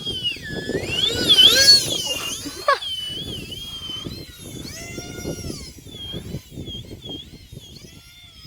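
Electric ducted-fan motors of a small UMX A-10 radio-control model jet whining in flight, the pitch wavering up and down as the throttle changes. It is loudest between one and two seconds in, with a quick sharp drop in pitch a little later. Wind buffets the microphone underneath.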